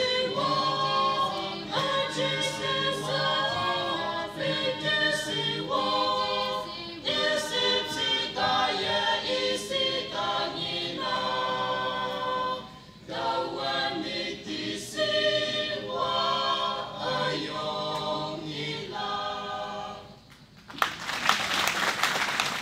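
Mixed choir of young women and men singing a gospel song a cappella in parts. The singing ends about twenty seconds in and is followed by a short, loud burst of noise.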